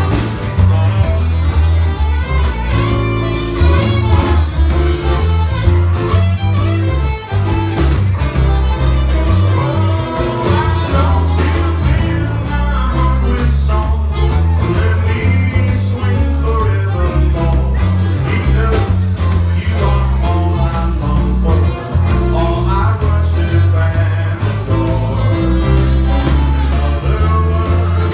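Live band playing a song: electric bass and drums driving a steady beat under acoustic guitar, with a man singing.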